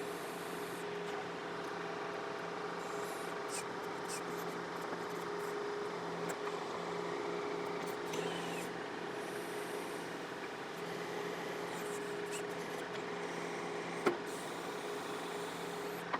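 John Deere 4052R tractor's diesel engine running steadily at low idle while it powers the backhoe's hydraulics, with one sharp knock near the end.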